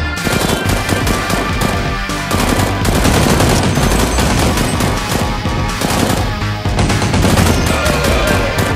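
Rapid, continuous machine-gun fire sound effects, dubbed over a blaster fight, with background music underneath.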